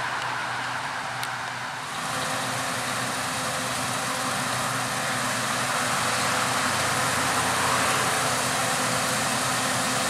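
Claas Lexion 750 combine harvester running steadily while combining, a broad machinery rush over a steady engine hum. About two seconds in the sound shifts and grows a little brighter and louder, with the combine unloading into a trailer and a Fendt tractor running alongside.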